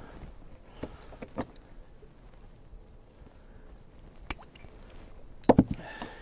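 Scattered knocks and clicks from handling a landing net and gear at the side of a boat, with a louder cluster of thumps near the end.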